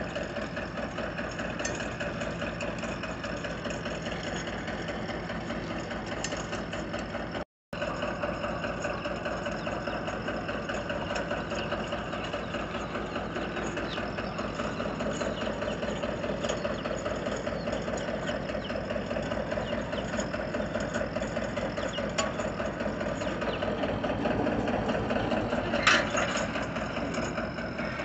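Engine of a borewell pipe-lifting rig running steadily with a fast, even throb. About seven seconds in it drops out for a split second, and near the end there is one sharp knock.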